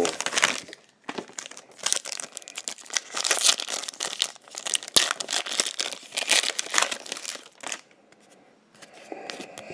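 Foil wrapper of a trading-card pack crinkling and tearing as it is ripped open by hand; the crinkling stops about eight seconds in.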